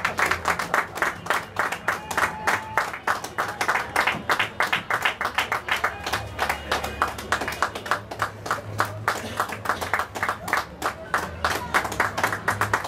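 Parade spectators clapping: sharp, close claps from a few nearby hands, about five a second, over a low steady hum.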